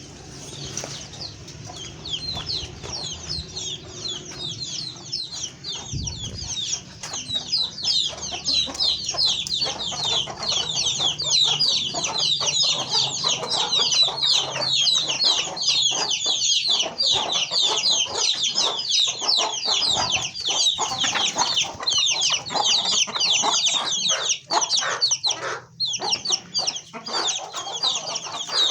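A flock of chickens in a poultry house calling together: a dense chorus of many overlapping, high-pitched short calls, with scattered light clicks. It grows louder over the first several seconds, then holds steady.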